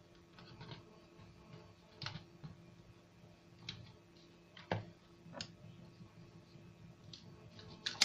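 A plastic bottle holding chopped garlic handled on a stone countertop: faint, scattered light clicks and taps, with one sharper knock a little past halfway.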